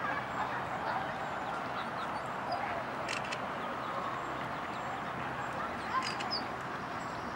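Ducks quacking and calling steadily, with two short sharp clicks about three and six seconds in.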